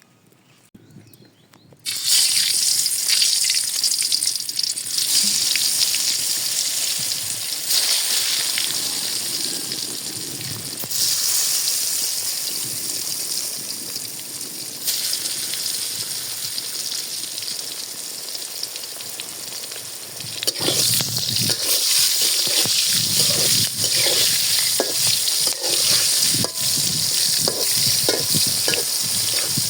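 Food sizzling in hot oil in a pan, starting about two seconds in, in several short cuts. In the last third a spoon stirring and scraping in the pan adds a run of knocks over the sizzle.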